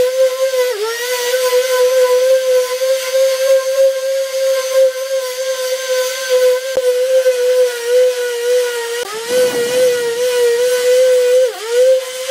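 Electric orbital sheet sander running steadily, its sandpaper rubbing over body filler on a car door panel: a high motor whine over a sanding hiss. The whine's pitch dips briefly about three times.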